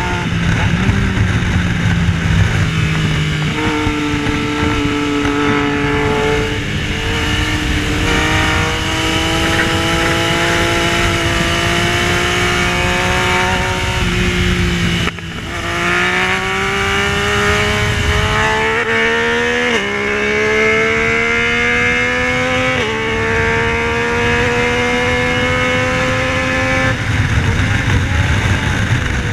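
Yamaha Tracer 900's 847 cc inline-three engine at racing pace, lapping the track: the engine note climbs under hard acceleration and drops sharply at each upshift, twice in quick succession in the second half, after a short lift off the throttle about halfway through. Steady wind rush on the onboard microphone.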